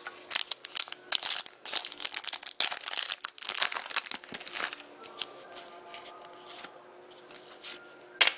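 Crinkling and rustling of trading-card packaging and cards being handled, in quick dense bursts for about five seconds, then quieter and sparser.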